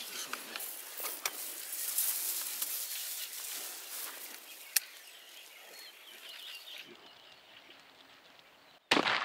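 Rain pattering steadily with scattered drips, then near the end a single sudden, loud shotgun blast fired at a drake.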